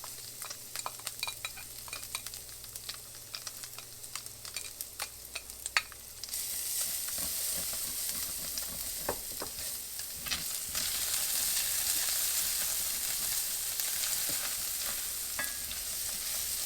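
Minced garlic sizzling in olive oil and butter in a skillet, stirred in the pan, with scattered sharp clicks in the first few seconds. The sizzle turns louder about six seconds in and again near eleven seconds.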